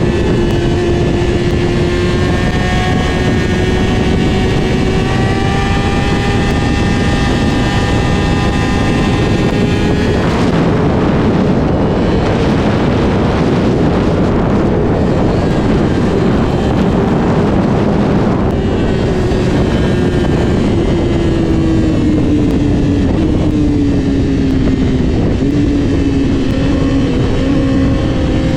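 Sport motorcycle engine under way at high revs, its note slowly climbing; about ten seconds in a loud rushing noise covers it for around eight seconds, then the engine note falls steadily as the bike slows.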